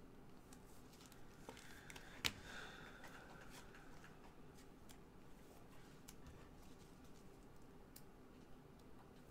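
Faint handling noise of gloved hands working trading cards and a plastic card sleeve: light scattered clicks and rustles, with one sharp click a little over two seconds in.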